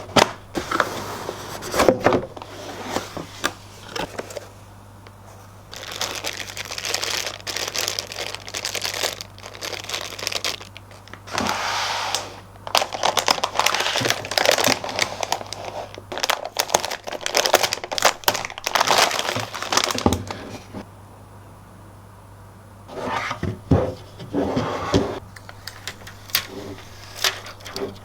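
Product packaging being unwrapped and handled: crinkling and rustling in clusters with a few sharp clicks and knocks, pausing twice, over a faint steady hum.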